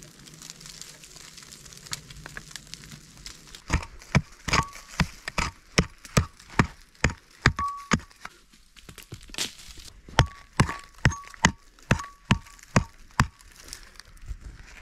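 Pick striking stony soil in a quick series of blows, about two a second, some with a short metallic ring. The blows start about four seconds in and pause briefly midway.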